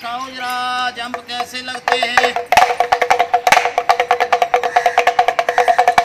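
A man's voice calling in a sing-song for about the first two seconds, then a damru, a small hourglass pellet drum, shaken in a fast rattle of beats.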